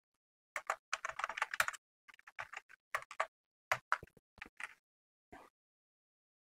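Typing on a computer keyboard: a quick run of keystrokes about a second in, then scattered single key presses and short bursts with pauses between.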